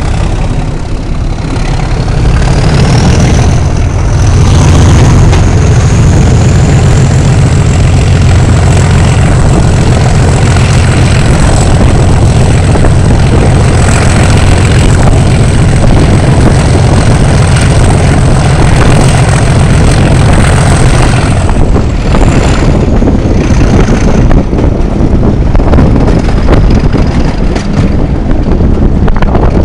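Class 37 diesel locomotive's English Electric V12 engine working hard under full power, with a high turbocharger whistle that rises a couple of seconds in, holds steady, and falls away after about twenty seconds. Wind rushes over the microphone at the open coach window.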